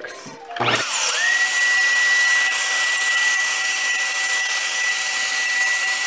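Eureka AirSpeed All Floors vacuum cleaner switched on about a second in, its motor whine climbing quickly and then running steady and high over a loud rush of suction air through the brush attachment.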